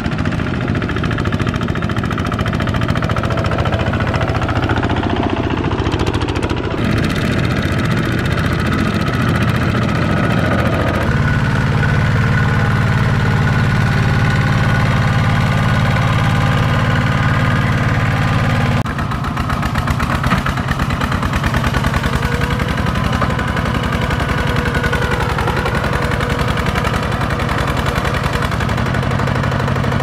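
Two-wheel walking tractor's single-cylinder diesel engine running steadily under load while hauling a trailer of rice sacks through mud, with the rapid even beat of its firing strokes. The engine note changes abruptly a few times.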